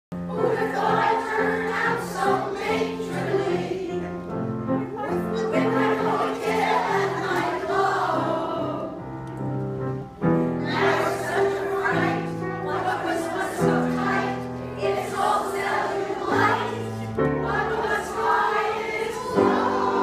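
A women's choir singing a song together, held notes moving from one to the next. The singing breaks off briefly about halfway through, then starts again.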